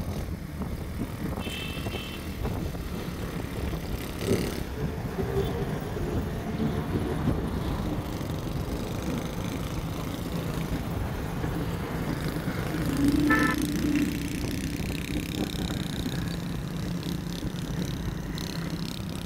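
Small motorcycle engines running steadily on the move in street traffic. A brief horn toot sounds about two seconds in.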